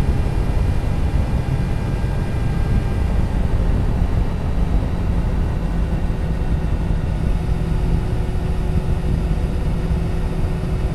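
Triumph Tiger 1050 motorcycle cruising steadily at expressway speed: a constant low rush of wind on the microphone mixed with engine and road drone, with no change in revs.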